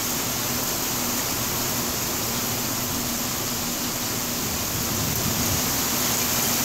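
Heavy rain pouring down in a steady hiss, with a low rumble of thunder building near the end.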